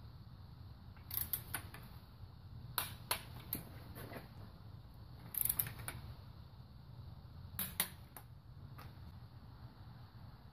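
Ratchet and click-type torque wrench clicking in several short bursts as the head bolts of a Toyota 1ZZ-FE engine are run down on a first pass to 20 ft-lb.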